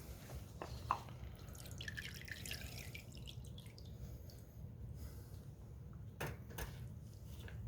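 Liquid concrete sealer dripping and trickling off a freshly dipped concrete planter back into the dip container, a quick run of fine drips about a second in, then two light knocks near the end.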